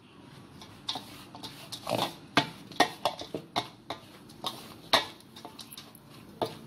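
A spoon stirring a dry crumble of rolled oats, flour and brown sugar in a stainless steel bowl: irregular scraping and knocking of the spoon against the bowl over the rustle of the oats, with several sharp knocks.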